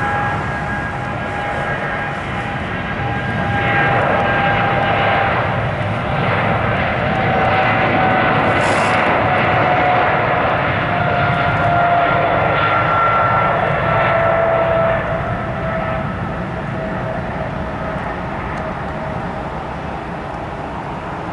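Boeing 777 jet engines running at high power: a steady roar with a high whine that slowly falls in pitch as the airliner passes and moves away, loudest in the middle.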